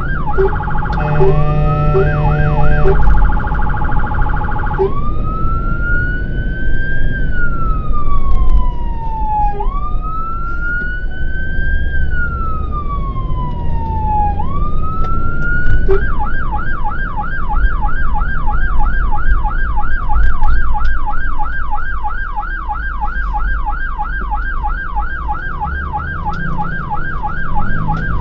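Fire engine siren heard from inside the cab. It opens with quick rising whoops and a horn blast of about two seconds, then a slow wail rising and falling about every two and a half seconds. About halfway it switches to a fast yelp of about three cycles a second, over the low rumble of the engine.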